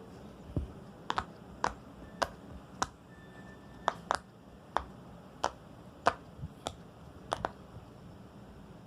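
A plastic fidget toy being pressed and popped, about a dozen sharp clicks spaced roughly half a second to a second apart.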